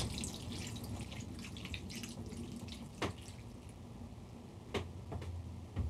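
Water poured from a drinking glass into a deep baking tray of vegetables and meat, splashing and trickling onto the food as liquid for a braise, with a few light clicks later on.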